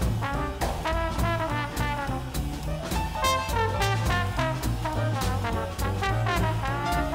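Live swing jazz: a trombone plays the lead over a rhythm section of double bass, archtop guitar and drums, with the cymbals keeping a steady beat.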